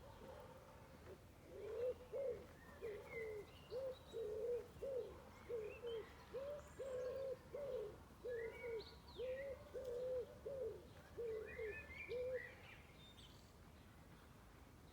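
Birdsong: a low, hooting call repeated in a steady series of about two notes a second for some ten seconds, with smaller birds chirping higher above it.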